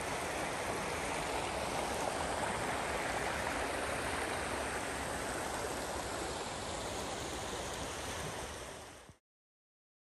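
A creek running steadily over rocks between snow banks and ice shelves, making an even rushing sound; it cuts off suddenly about nine seconds in.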